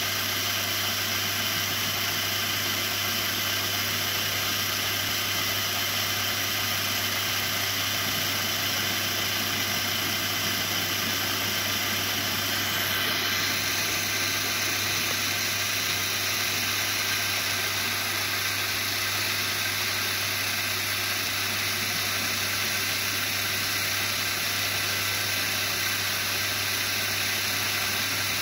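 Märklin 3048 BR 01 model steam locomotive running on a roller test stand: its electric motor and gearing give a steady, unchanging hum as the driving wheels turn on the rollers.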